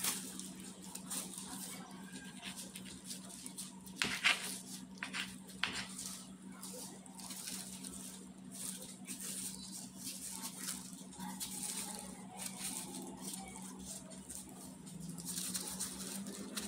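Kitchen knife cutting and peeling apple against a wooden cutting board: small scrapes and taps, with a few sharper knocks about four to six seconds in, over a steady low hum.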